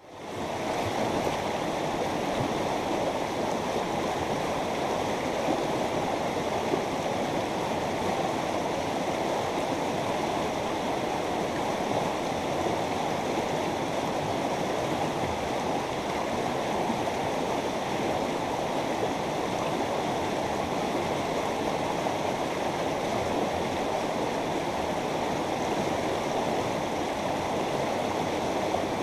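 River water running over its bed: a steady, unbroken rush, fading in over the first second.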